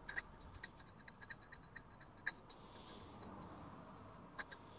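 Faint, irregular metal clicks and scrapes of a pick cleaning out the retaining-clip groove in a Suzuki VL125 fork leg. A quick run of ticks comes over the first two seconds or so, then two more near the end.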